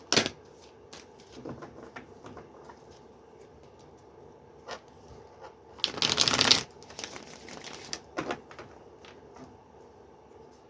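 Tarot cards being shuffled and handled: soft scattered flicks and rustles of the cards, with a short sharp burst at the start and a louder brushing burst of card stock about six seconds in.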